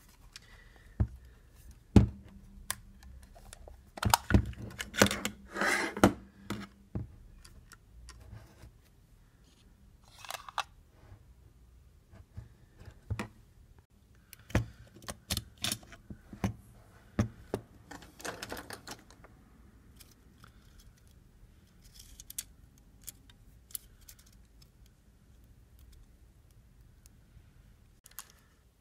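Scattered small clicks, taps and knocks from a Nikon F camera body and its parts being handled and taken apart, with a denser run of clicks and rattling about four to seven seconds in and another from about fifteen to nineteen seconds in.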